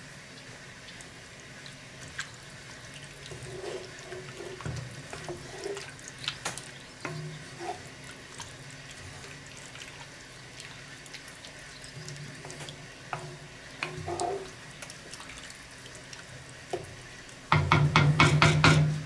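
Wooden spatula stirring thick tomato goulash in a cast-iron Dutch oven, with soft wet squelches and scrapes, as flour is worked in. Near the end a quick run of rapid scraping strokes, about five a second, is the loudest part.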